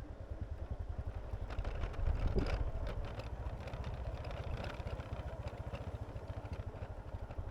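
Vehicle engine running steadily while travelling along a road, a low fast pulsing, with some light rattling about two seconds in.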